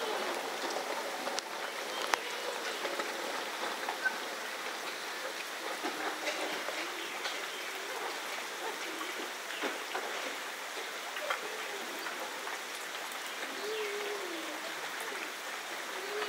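Steady rain falling, with single drops landing close by as sharp ticks.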